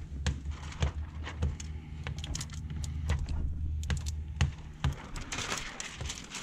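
Irregular light clicks and taps from hands working with tools and window tint film. A short crinkling rustle of the plastic film comes near the end.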